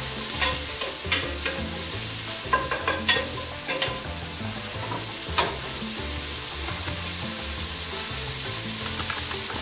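Diced onion and leek sizzling in hot oil in a stainless steel pot, with a steady hiss. A wooden spoon stirs them and knocks against the pot several times in the first five seconds or so, then only the sizzle goes on.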